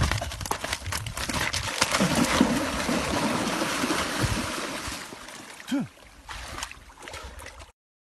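Water splashing and sloshing, with scattered knocks; it fades over the last few seconds, then cuts off abruptly.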